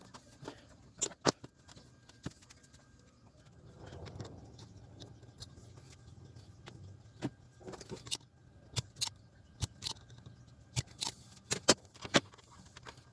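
Irregular sharp clicks and light metallic clinks of small parts and tools being handled during assembly work on the bench, several in quick succession near the end.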